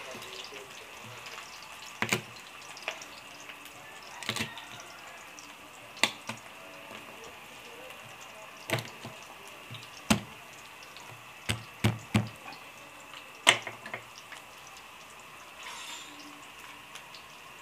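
Sliced onion frying in oil in an aluminium pan: a steady faint sizzle with a dozen or so sharp, irregular pops of spattering oil, the loudest about thirteen seconds in.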